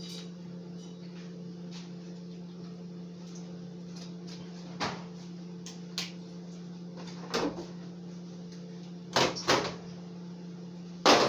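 Scattered knocks and bumps of kitchen handling, a few separate ones and then two close together, with the loudest near the end, over a steady low hum.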